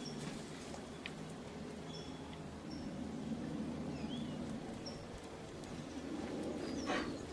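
Small birds chirping outdoors: short high notes every second or so, some with quick rising or falling glides, and a louder call near the end, over a steady low background hum.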